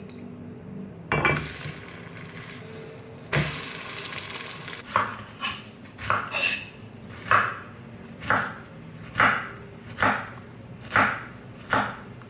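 Kitchen handling sounds: a knock, a second or so of rushing noise, then a run of about ten short strokes that settle into roughly one a second.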